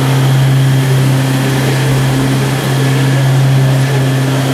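DMG milling machine running with a steady, loud hum and a fainter higher tone that comes and goes.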